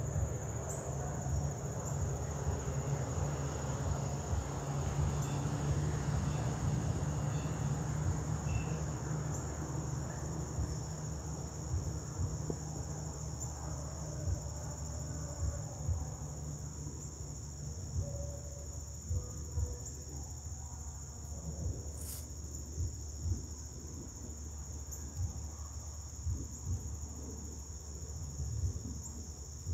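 Steady chorus of insects such as crickets, a continuous high trill, over a low rumble with crackling. One sharp click about two-thirds of the way through.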